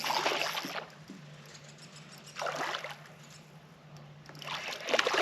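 Water splashing in three bursts, near the start, about two and a half seconds in and near the end, from a hooked bass thrashing at the surface beside the kayak.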